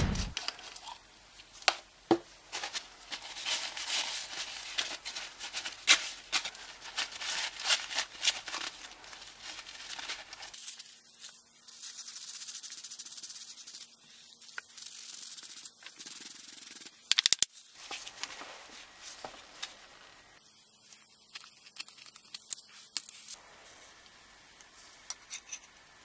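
Small steel knife parts being handled on a paper-covered bench: scraping and rubbing with many light clicks and clinks, in several short clips, with a sharp cluster of clicks about two-thirds of the way through.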